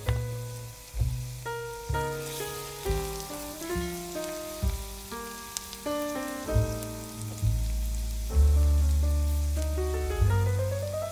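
Instrumental background music, a plucked melody over deep bass notes, with a rising run of notes near the end. Under it, the faint sizzle of chopped onion frying in a pan.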